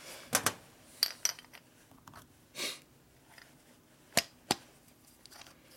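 Small metal engine parts clinking and knocking on a workbench as they are handled and set down: a few sharp taps, mostly in pairs near the start and again near the end, with a brief rustle in the middle.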